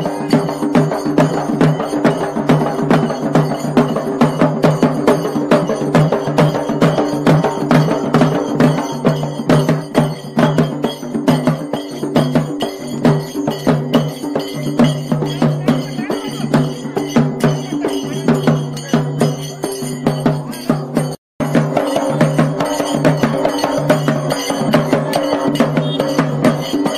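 Fast, loud rhythmic drumming on large stick-beaten barrel drums of a street procession drum band, cut by a brief break about 21 seconds in.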